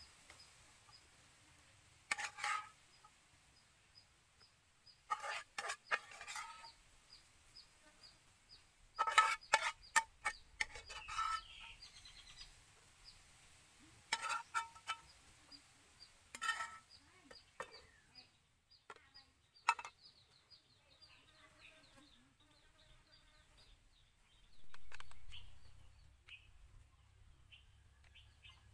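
Chickens clucking in short bouts, several times, with a few sharp clicks among them and a faint steady ticking high in the background.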